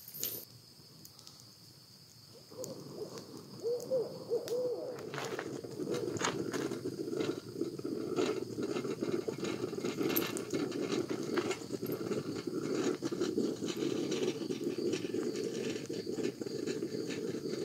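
A dense chorus of overlapping, wavering animal calls in the night that starts suddenly a couple of seconds in and carries on steadily, with scattered clicks and crackles.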